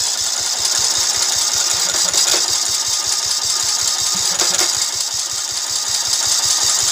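Husqvarna mower's petrol engine running steadily with an even, rapid beat, having just started.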